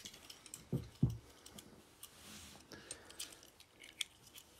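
Faint scattered clicks and light taps of die-cast toy cars and plastic track being handled, with two soft knocks in the first second or so.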